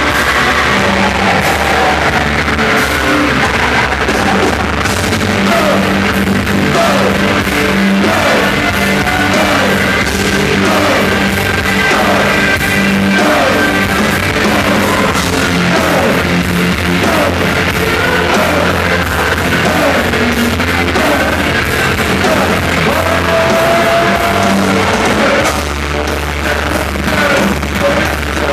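Live rock band playing loudly, with distorted guitars, a pounding drum beat and shouted vocals.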